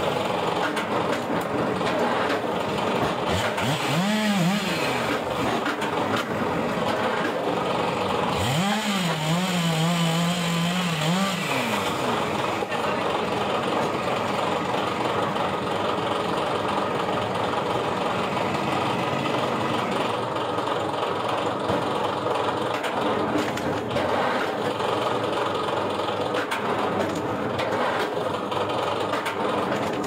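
Motor-driven log splitter running steadily, with a whine that rises and falls about four seconds in and again from about eight and a half to eleven and a half seconds.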